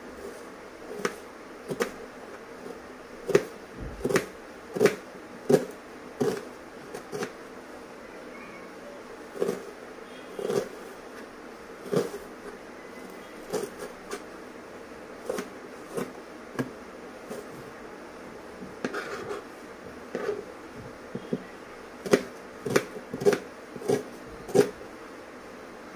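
Knife chopping an onion on a plastic cutting board: short, sharp knocks of the blade hitting the board, irregular and coming in runs of about one to two a second.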